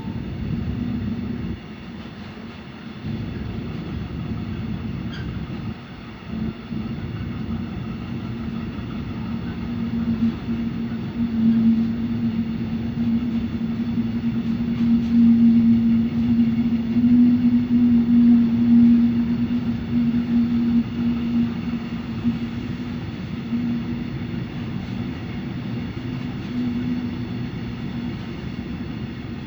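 A train passing close by: its running noise with a steady low hum grows louder to a peak about halfway through, then eases off.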